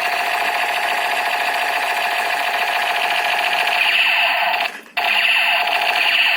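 Electronic sound effect of a toy shotgun played through its small built-in speaker: a harsh, continuous buzzing rattle. It cuts out for a moment nearly five seconds in, then starts again.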